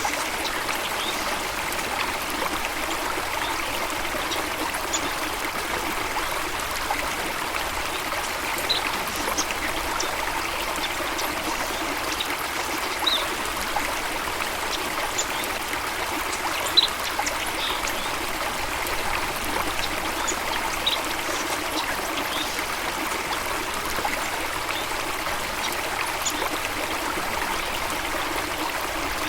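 A stream of water running and trickling steadily, with short high-pitched chirps here and there.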